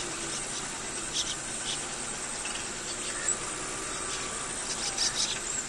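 Crickets trilling steadily in the field, a high continuous sound, with a few short high chirps scattered through it.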